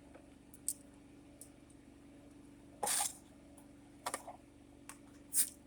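Hand tool working small screws out of a car's plastic trim: a handful of sharp clicks and short scrapes, the longest scrape about three seconds in and a quick cluster of clicks about a second later. A faint steady hum runs underneath.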